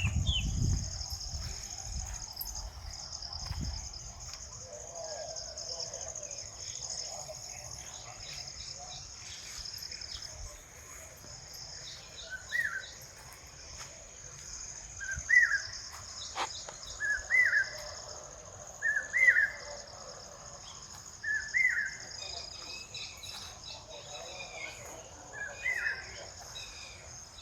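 Insects buzzing steadily outdoors. About halfway through, a bird starts repeating a short call about every two seconds. A low rumble is heard in the first few seconds.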